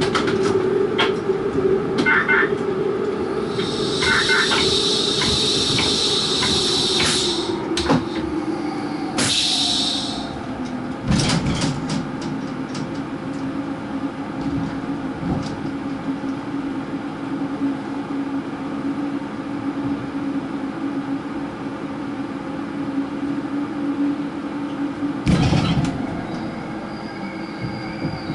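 Seoul Metro Line 5 subway train running through a tunnel, heard from the cab: a steady motor hum that drops a little in pitch about ten seconds in, with clicks of wheels over the rails. Two stretches of high hiss come early on, and a louder short rumble comes near the end.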